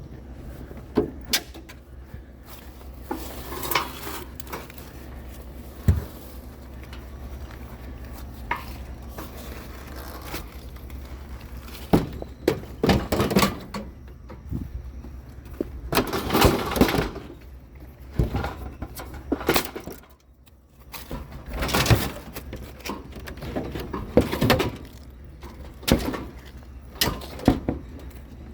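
Repeated clanks, knocks and clatters of discarded junk being handled and loaded, with sharp hits every second or two and a few longer rattling stretches, over a steady low hum.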